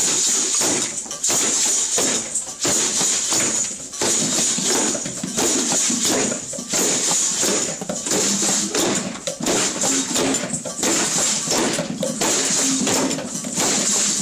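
A group jam on homemade percussion made from household materials: shakers made from plastic containers rattle in a steady rhythm, with drumming on a plastic tub and a metal pot. The shaking dips briefly about every second and a third.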